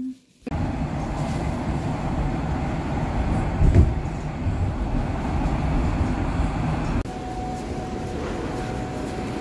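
Steady low rumble of a moving train, heard from inside the car, swelling briefly about four seconds in. About seven seconds in it gives way to a slightly quieter city street hum with a faint high steady tone.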